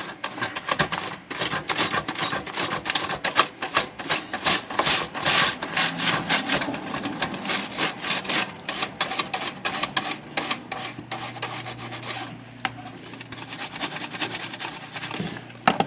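Stiff brush scrubbing the plastic key tops of a typewriter keyboard in quick, rapid strokes, rubbing a cleaner in to lift a white coating off the keys. The scrubbing stops about twelve seconds in.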